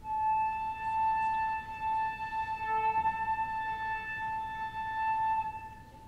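Flute holding one long, steady high note that stops just before the end.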